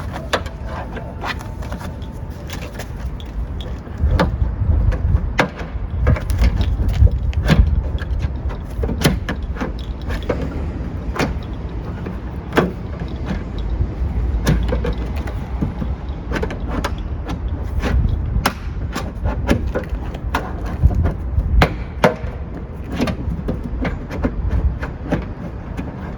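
Irregular clicks and knocks of hands and tools prying at and removing the plastic trim on a car's rear hatch, over a low rumble.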